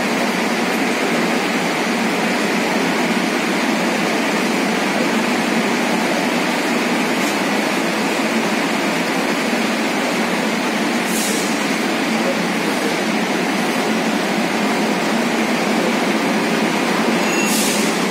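Steady interior noise of a Kochi Metro train car standing at a platform with its doors open, with passengers murmuring and a few brief ticks near the end.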